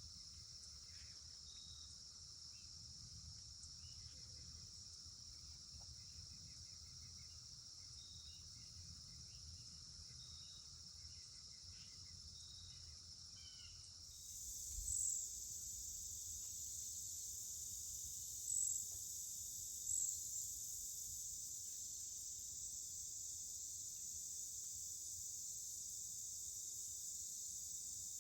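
Steady high-pitched chorus of crickets and other insects. About halfway through it suddenly gets louder and shriller, with a few short chirps on top.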